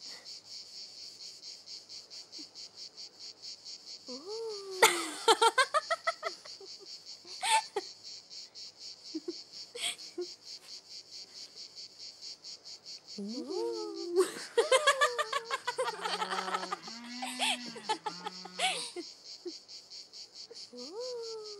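Insects chirping steadily in a fast, even pulse, with bursts of laughter about five seconds in and again for several seconds in the second half.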